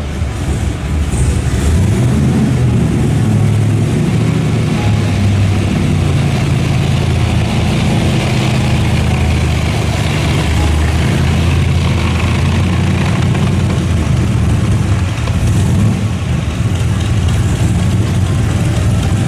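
Classic Chevrolet Corvette V8 engine running steadily at a loud level, a low rumble that wavers only slightly in pitch.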